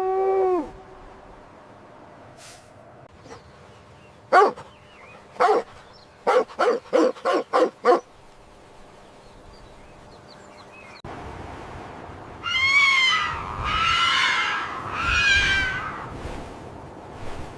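Animal calls. First come short sharp calls: two spaced apart, then six in quick succession. After a change in background, three long wavering calls fall in pitch.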